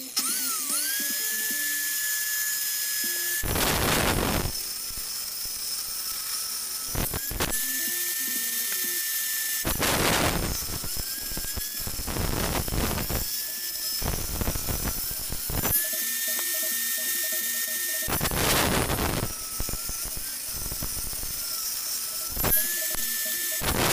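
Homemade table saw, a circular saw blade run up through a wooden tabletop, spinning up to a steady high whine. It then rips hardwood strips several times. Each cut brings a loud rasping burst and pulls the whine's pitch down under load, and the pitch recovers as the blade runs free between cuts.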